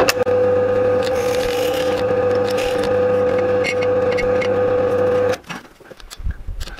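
SIP pillar drill (bench drill press) motor running with a steady hum while an 8 mm bit bores through 3/4-inch plywood; the sound cuts off suddenly about five seconds in.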